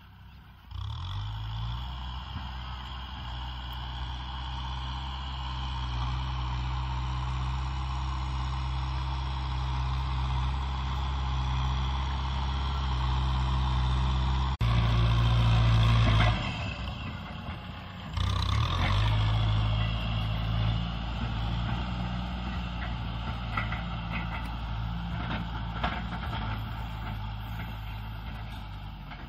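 Kubota M6040 SU tractor's diesel engine running steadily under load as its blade pushes soil. The engine sound cuts in about a second in, gets louder toward the middle, drops away briefly, then picks up again.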